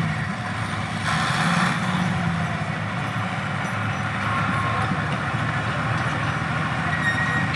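Heavy diesel engine of a log-hauling machine running steadily with a low rumble. About a second in there is a short burst of hissing noise.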